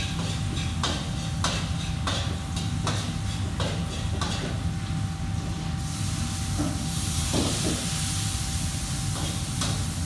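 Restaurant kitchen noise: a steady low hum with a faint steady tone, regular short knocks about one and a half a second, then a loud hiss from about six seconds in that lasts three to four seconds.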